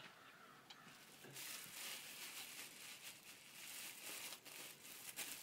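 Faint crinkling and rustling noise with soft irregular clicks, starting about a second and a half in.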